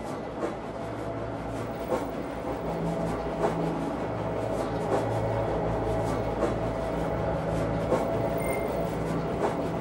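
Train running along the track, its wheels clicking over rail joints about every second and a half over a steady running hum.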